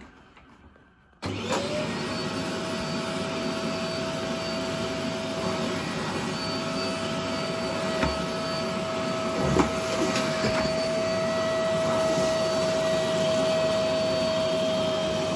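Several cylinder vacuum cleaners running together with their heads on carpet. The motors start about a second in, rise quickly in pitch, then hold a steady whine over the rush of suction.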